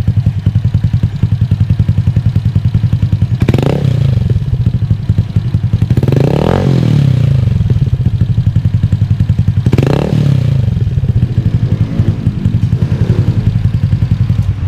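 Honda Airblade scooter's single-cylinder engine, bored up to 170cc, running through a Yoshimura Alpha aftermarket exhaust with a catalytic silencer fitted inside it. It idles with a fast, even pulse and is revved up and back down three times, a few seconds apart, then blipped more lightly near the end.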